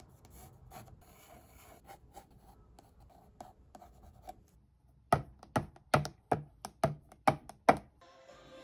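Coloured pencil (Prismacolor Verithin) drawing on watercolour paper: faint scratching strokes at first, then a run of about eight louder, quick strokes, roughly two to three a second, past the middle.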